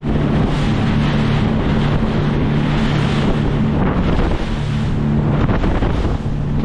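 Boat engine running with a steady low hum, under heavy wind buffeting on the microphone and the wash of water.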